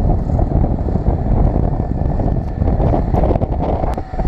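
Wind buffeting the microphone of a camera riding down a zipline: a loud, unbroken rushing noise heaviest in the low end.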